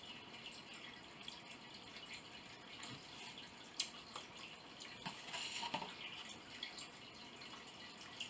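Faint eating sounds: a fork clicking sharply once just before a mouthful about four seconds in, then soft chewing and mouth sounds.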